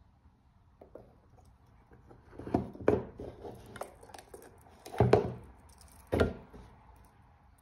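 Watches and their presentation boxes being handled: a handful of sharp knocks and clicks, loudest about two and a half, three, five and six seconds in, as a watch is set onto its box pillow and another lifted out.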